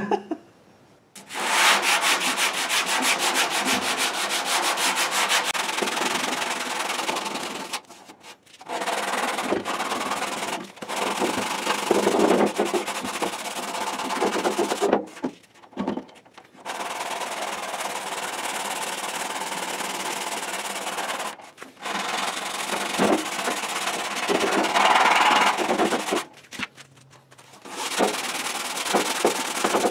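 Hand sanding: sandpaper on a long sanding block rubbed back and forth over body filler on a steel car fender, in repeated passes with short breaks every few seconds. This is block-sanding the filler down to shape the fender's curve.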